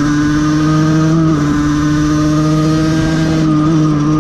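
Aprilia 50cc moped's two-stroke engine, fitted with an aftermarket exhaust, running at steady revs under way. Its pitch rises slightly once or twice.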